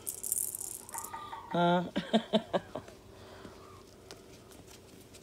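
A woman's voice: one loud, briefly held wordless vocal sound about a second and a half in, then a few short syllables. A short rustle of handling comes just before it.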